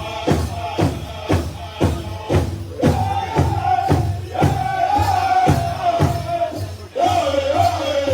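Powwow drum group singing over a big drum beaten steadily about twice a second, the singers holding high, long notes; the singing breaks off briefly and a new phrase starts about seven seconds in.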